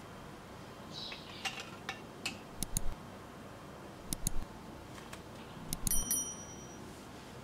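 Metal spoon clinking and scraping against a metal serving tray as rice is scooped out: a handful of light, sharp clinks, some in quick pairs.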